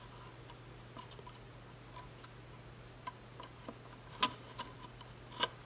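Scattered small sharp clicks and ticks of metal pliers working at the old reed switch's solder joint and red wire on the rain gauge's plastic housing, the two sharpest about four and five and a half seconds in. A low steady hum runs underneath.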